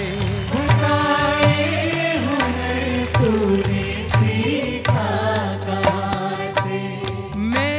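Live Hindi film song sung by a group of singers together into microphones, over a band with a steady bass line and percussion.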